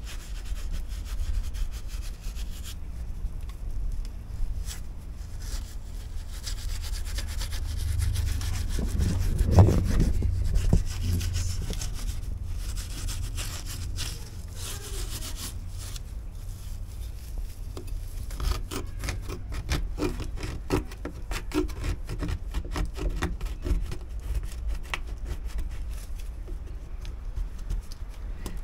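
A hand scraper working peeling red paint and old sealant off a front door: a run of rough scraping and rubbing strokes, which come quicker and sharper near the end.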